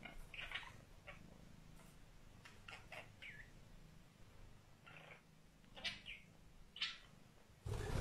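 Budgerigar giving short, scattered chirps, one sliding downward about three seconds in. Near the end comes a louder burst of wing flutter as it flies.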